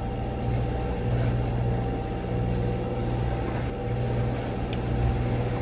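Boat's engine running steadily: a low drone that swells and eases every second or so, with a faint steady hum above it.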